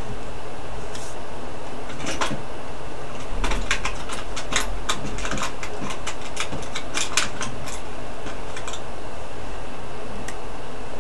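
A steady background hiss and hum, with a run of small, light clicks and taps from about two seconds in until about nine seconds, as tiny craft pieces are handled and put into a small glass bottle.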